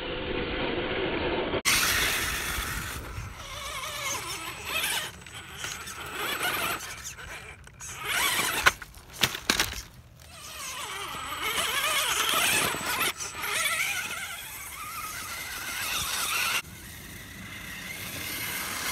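Radio-controlled Axial Wraith rock crawler's electric motor and gears whining as it drives over rock, with a few sharp knocks about halfway through. The sound changes abruptly at several edit cuts.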